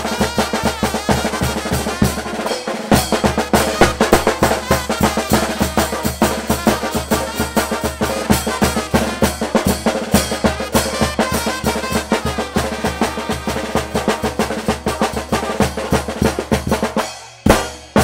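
Live brass band with a drum kit playing a quick dance tune: a steady bass-drum and snare beat, about four strokes a second, under horn parts. Near the end the music breaks off, then one loud closing hit rings out.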